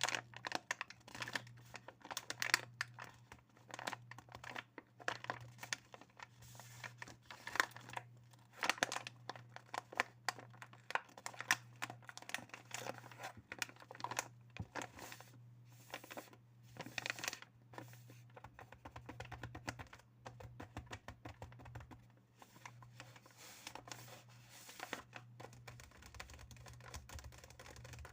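Fingers tapping and knocking on assorted objects for ASMR, in quick, irregular runs of light taps and crinkly clicks with short pauses, over a faint steady low hum.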